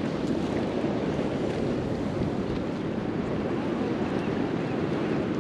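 Steady wind noise buffeting the microphone over water, an even rumble with no breaks.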